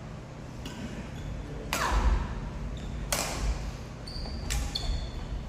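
Badminton rackets striking shuttlecocks in a large gym hall: two loud, sharp hits about a second and a half apart, with fainter hits before and after, each trailing off in the hall's echo. A few brief high squeaks of shoes on the wooden court come in near the end.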